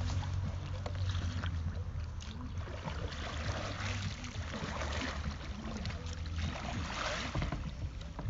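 Kayak paddle strokes splashing in river water, the splashes coming in washes through the middle and again near the end, over a steady low rumble.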